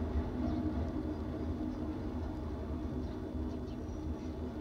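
BNSF intermodal freight train rolling past: a steady low rumble of wheels on rail, easing off slightly.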